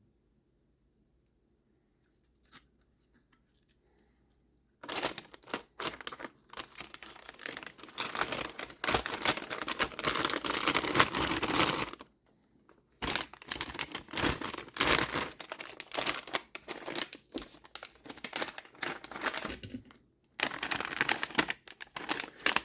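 Packaging crinkling and tearing as a circuit board is unwrapped by hand. It starts about five seconds in and comes in long stretches, broken by short pauses twice.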